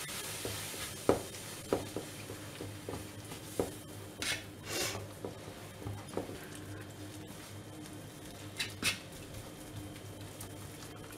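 A whisk stirring milk into a thick flour-and-carrot mixture in a nonstick frying pan: light scattered taps and scrapes against the pan, with a few brief hisses from the hot pan about four seconds in and again near the end.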